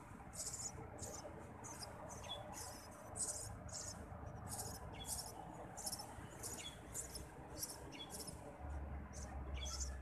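Eurasian tree sparrow nestlings begging in the nest: a run of short, high, hissy calls, about two or three a second, with a few short falling chirps among them.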